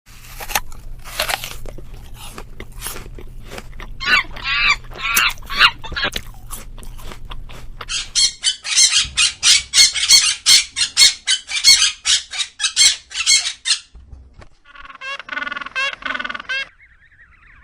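Domestic fowl calling in a string of short clips: scattered clucks and squawks, then a fast run of short shrill calls for about five seconds, and after a brief break a few rippling, warbling calls near the end.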